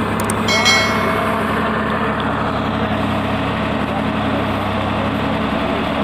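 Swaraj 960 FE tractor's diesel engine running steadily while it powers a Bull backhoe attachment digging a trench, with background voices. A brief high-pitched whistle-like sound rises over it about half a second in.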